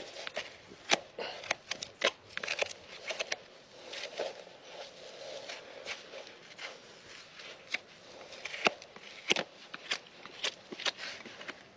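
A farrier's hand tool scraping and cutting at the sole of a Shire horse's hoof, paring away packed horn and dirt. It makes irregular crisp clicks and short crunchy scrapes, several a second.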